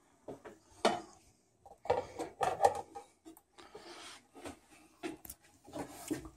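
A vinyl record being handled and set onto the record changer of a 1960 Grundig Majestic console stereo: irregular knocks and clicks with short scraping noises in between, loudest about a second in and again between two and three seconds.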